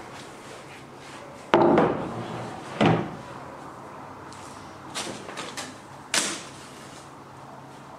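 Two loud wooden knocks about a second apart as a plywood jig holding oak frame pieces is set down on a solid wooden workbench. A few light clicks and one sharper knock follow as tools are handled on the bench.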